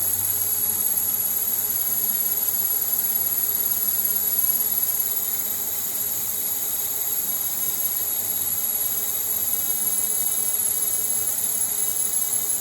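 CNC lathe roughing D2 tool steel with a grooving insert under full-blast spray-mist coolant: a steady hiss with a thin, high-pitched whistle, which turns choppy near the end.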